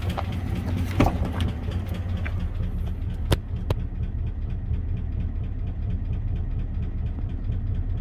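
2004 Chevy Silverado's 5.3-litre V8 idling with a fast, light tapping from the top end. The engine is nearly out of oil and running at only about 6 to 8 psi of oil pressure. Two sharp clicks come a little past the middle.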